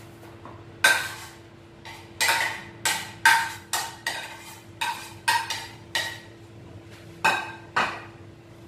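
A utensil tapping and scraping against a ceramic plate as chopped ingredients are knocked off into a bowl: a run of irregular, sharp, ringing clinks, bunched together, then two more near the end.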